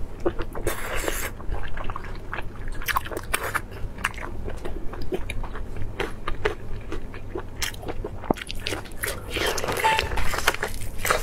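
Close-miked chewing and biting of lamb intestine sausage stuffed with lamb: wet, sticky mouth clicks and smacks throughout, with a thicker burst of biting near the end.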